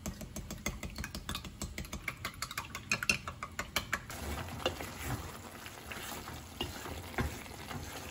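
Food being stirred with a utensil in cookware: quick, dense clicks and scrapes for the first half, then slower, sparser strokes.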